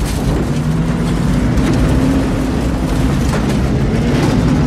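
Jeep pickup truck engine running hard at steady high revs as it races across a rough field, under a constant loud rushing noise in a film sound mix.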